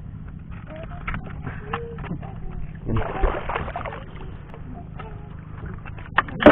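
Knife and hands working small mussel-like kagotkot shells off a rough rock, with scattered clicks and knocks of shell on rock, over a steady low hum. About three seconds in there is a brief splash of water, and near the end two sharp knocks.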